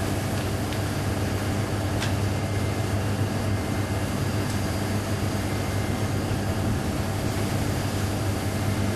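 Steady low hum with a hiss over it, unchanging throughout, with one faint tick about two seconds in.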